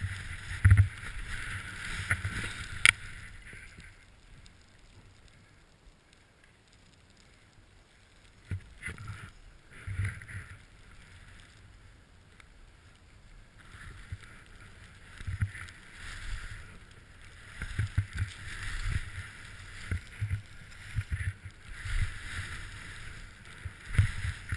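Skis sliding and scraping over packed snow through turns, a hiss that swells and fades, dropping away for a few seconds early on before building again, with scattered low thumps.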